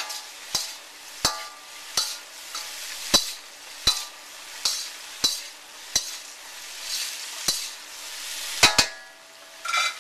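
Stir-frying in a wok: a metal spatula strikes and scrapes the wok about every three-quarters of a second, each stroke ringing briefly, while vegetables and meat sizzle in the hot oil. A louder double clang comes near the end.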